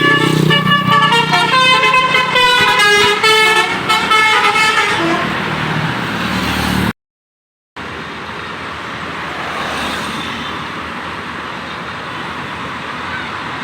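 Tour bus's telolet basuri musical air horn playing a quick tune of stepping notes for about five seconds. After a brief break, steady road and traffic noise.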